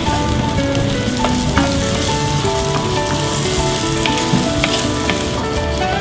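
Chopped garlic and onions sizzling in hot oil in a stainless steel pan as a wooden spoon stirs them, with scattered small clicks of the spoon against the pan.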